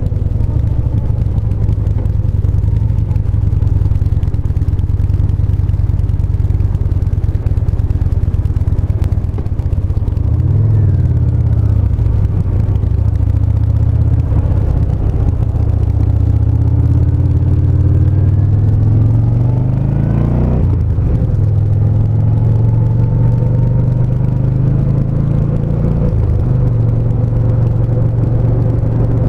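2017 Yamaha SCR950's air-cooled V-twin engine running under way, the engine note rising and falling as the rider accelerates and eases off, with a long climb cut off by a gear change about twenty seconds in.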